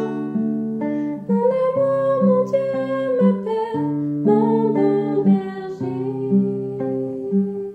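Slow worship song: acoustic guitar picked in a steady pattern under a voice singing long held notes.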